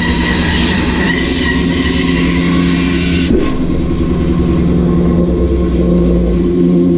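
Bandsaw running with its blade cutting through a large wood burr (burl) blank turned on a circle-cutting jig: a steady motor hum under a hiss of the blade in the wood. The cutting hiss is strongest for the first three seconds or so, then eases while the hum carries on.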